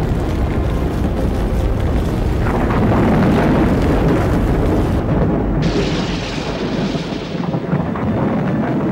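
An explosion and fire flaring up in straw, heard as a loud, dense rumble. A sharp hissing rush joins suddenly about five and a half seconds in and fades over the next two seconds.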